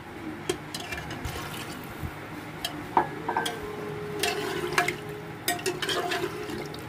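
Metal slotted spoon stirring water into mutton masala in a pressure cooker pot: liquid sloshing, with scattered clinks and knocks of the spoon against the pot, the sharpest one about three seconds in.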